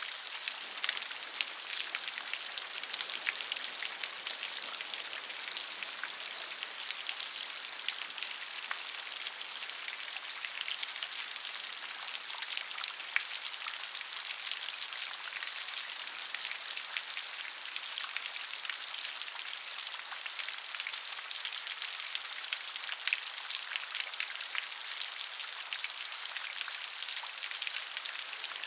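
Steady rain, a constant hiss dotted with many small, crisp drop ticks.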